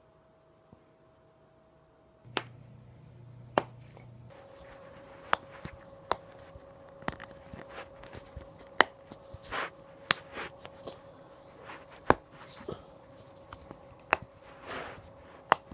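A person's back joints cracking: a run of sharp, irregular pops and clicks, a dozen or so loud ones among many smaller ones, starting about two seconds in, with some brief rustling and a faint steady hum underneath.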